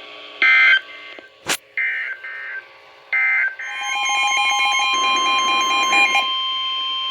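NOAA Weather Radio Emergency Alert System signal: three short warbling SAME digital header bursts, then the steady 1050 Hz warning alarm tone, which announces a new severe thunderstorm warning. A second, pulsing beep sounds over the tone for a couple of seconds.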